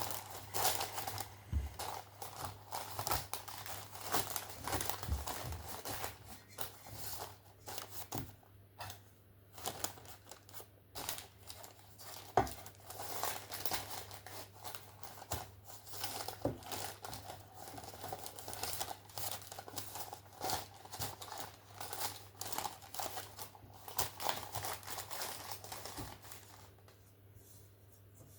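Baking paper lining a cake pan crinkling and rustling as crumbly shortbread dough is pressed into it by hand: a long run of small irregular crackles that stops near the end. A faint steady low hum lies underneath.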